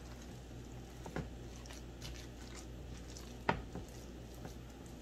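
Silicone spatula stirring a raw ground-meat meatloaf mixture in a glass bowl: soft squishing, with a few light sharp knocks, the clearest about three and a half seconds in.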